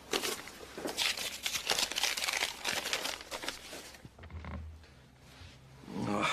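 Paper rustling and crinkling as a letter is unfolded and handled, in quick dense strokes for about four seconds before it goes quieter.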